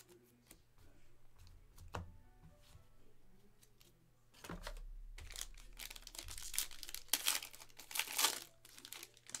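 Foil wrapper of a 2021-22 Donruss basketball hobby pack crinkling and tearing as it is ripped open by hand. The rustling starts about halfway through and is loudest near the end.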